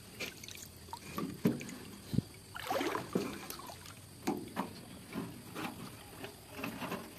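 Water splashing and sloshing in irregular bursts as a person wades and moves about in a shallow, muddy stream, with a few sharper knocks among them.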